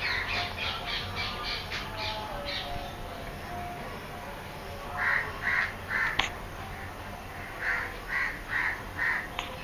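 Crows cawing outside in short runs of three or four calls, with a quicker run of higher-pitched calls in the first couple of seconds.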